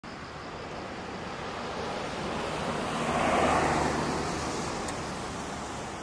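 A vehicle passing on a wet road: tyre hiss on the wet asphalt swells to a peak about three and a half seconds in, then fades away.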